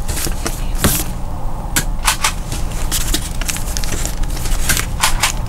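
Comic books being flipped through in a back-issue box: a run of short plastic crinkles, taps and rustles over a steady low background hum.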